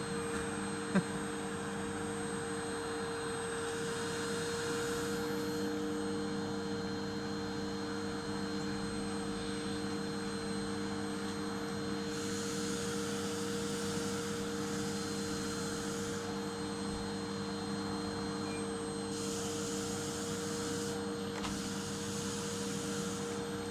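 Electric vacuum cleaner running steadily: a constant motor hum under the hiss of suction, the higher hiss growing and fading a few times. A single short click about a second in.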